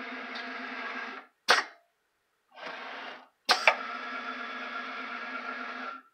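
Bench-top CNC machining center running an automatic tool change: a steady whine from the axis drives as the spindle moves, stopping briefly about two seconds in, with two sharp clacks from the tool-change mechanism about one and a half and three and a half seconds in.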